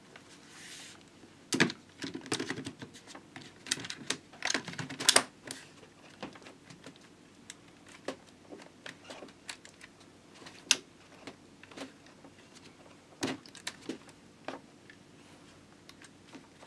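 Scattered plastic clicks and knocks from a Dell Vostro 3460 laptop's battery being fitted back into its bay and the laptop being handled, with a quick run of clicks about four to five seconds in.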